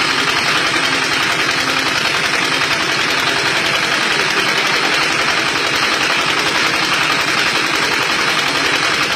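Motorised brick-making machine running steadily with a fast, even mechanical rattle.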